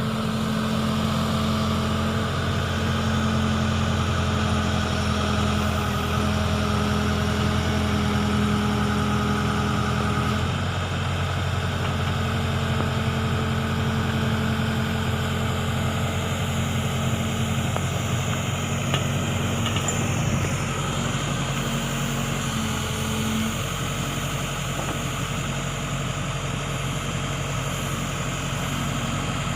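Diesel engine of a Case backhoe loader running steadily, its note shifting about ten seconds in.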